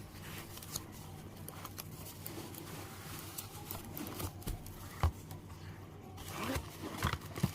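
Cardboard keyboard box being opened by hand: scraping and rustling of cardboard and packing material, with light knocks and a sharper knock about five seconds in and another near the end.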